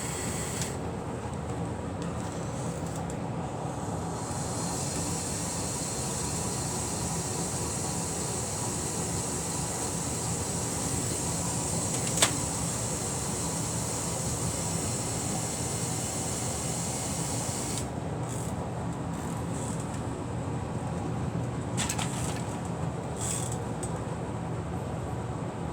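LEGO Power Functions electric motors and plastic gears of a Technic RC truck whirring steadily. The higher part of the sound cuts in and out a few times, and there is one sharp click about 12 seconds in.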